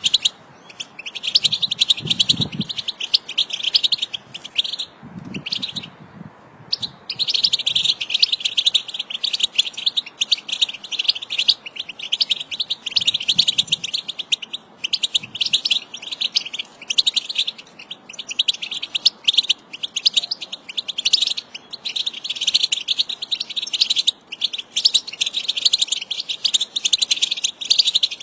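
A flock of European goldfinches twittering: many overlapping high chirps and trills, almost without a break, with a short pause about six seconds in.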